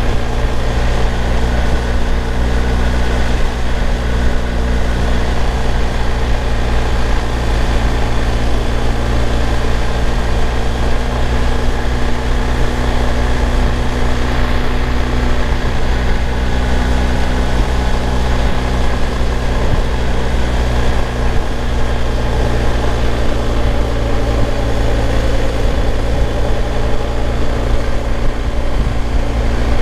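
BMW R1250 GS boxer-twin engine running at a steady cruise, mixed with constant wind and road rush at the helmet-mounted microphone, with no change in speed.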